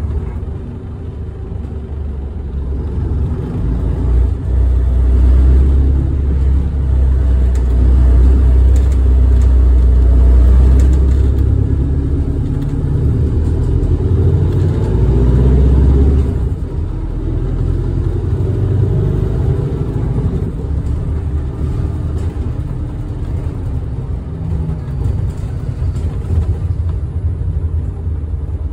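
Tokyu city bus running on the road, its engine and drivetrain making a deep rumble. It pulls louder from a few seconds in, drops off suddenly about 16 seconds in, then runs on more quietly.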